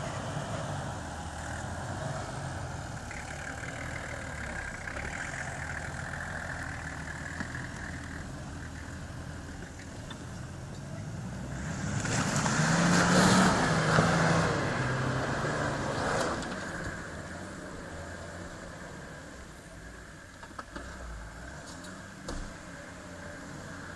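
Off-road 4x4 SUV engine running as it drives over rough ground, swelling to a loud, hard-pulling run for several seconds about halfway through as it climbs a steep muddy bank, then easing back.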